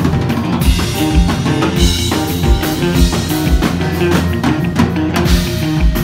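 Live rock band playing an instrumental jam: electric guitars over a drum kit, with kick and snare keeping a steady beat.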